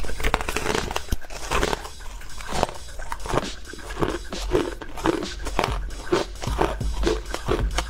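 Frozen purple ice cubes crunched between the teeth. A dense crackling bite into a frosted chunk is followed by steady chewing crunches, about two to three a second.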